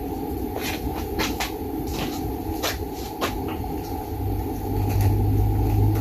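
A series of light clicks and knocks of small objects being handled on a workbench, about seven in the first three and a half seconds, over a steady background hum. A low hum grows louder near the end.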